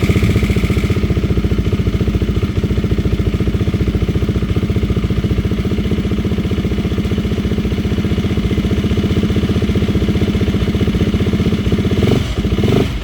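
GasGas EX350F single-cylinder four-stroke enduro engine idling steadily, just after starting, following its top-end rebuild. The level dips briefly near the end.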